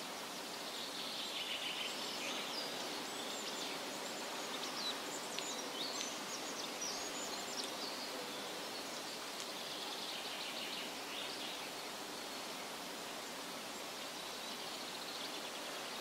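Forest ambience: a steady hiss, like wind through the trees, with small birds chirping and trilling over it for the first half and again briefly about ten seconds in.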